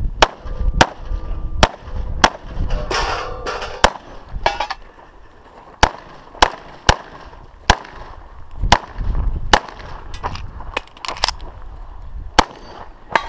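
A 9mm EAA/Tanfoglio Witness Elite Limited Pro pistol fired in a string of more than a dozen shots, mostly in quick pairs, with short pauses between the groups.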